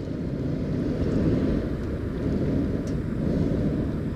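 Hot air balloon's propane burner firing, a steady rushing noise.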